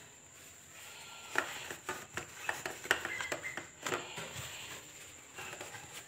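Tissue paper crinkling, with light clicks of small plastic bird drinking cups being handled as the tissue is pushed into them, in irregular scattered ticks and rustles.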